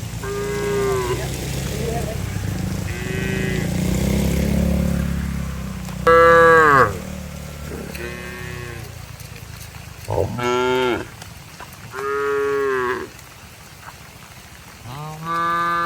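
Cattle mooing repeatedly, about seven separate calls of around a second each, the loudest about six seconds in. A low, steady rumble runs underneath the first six seconds.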